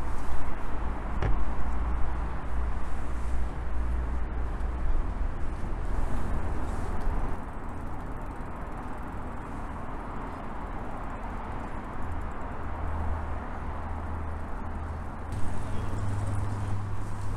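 Urban road traffic noise: a steady low rumble and hiss of passing vehicles, with one brief click about a second in. About fifteen seconds in the background changes to a steadier low hum.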